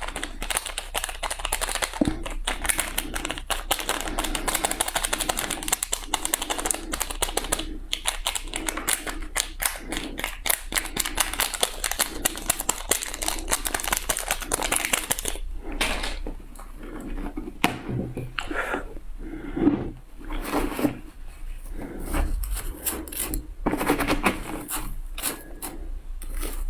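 Close-up crunching of frozen shaved ice being bitten and chewed: a dense run of rapid crackling for about the first fifteen seconds, then slower, separate crunches.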